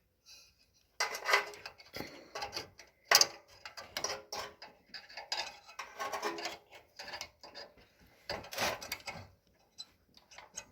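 Irregular clicking and scraping of small metal plumbing parts being handled and fitted by hand: the water filter screen and inlet fitting of a propane tankless water heater going back in place.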